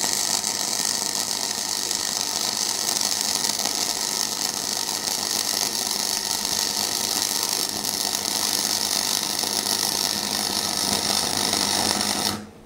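Parkside PFDS 120 A2 flux-core wire welder burning a continuous arc along a fillet seam on steel angle, a steady crackling and sizzling that stops abruptly near the end as the arc is broken.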